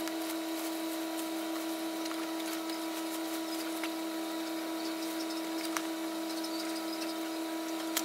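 Plastic wrap faintly crinkling and rustling as it is pulled off a new inkjet printer, under a loud, steady, even hum of one pitch.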